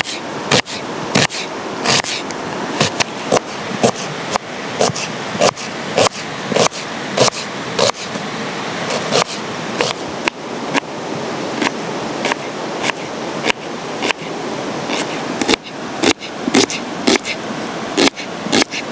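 Kitchen knife chopping an onion on a wooden cutting board: sharp knocks of the blade on the board, about two to three a second, over a steady rushing hiss.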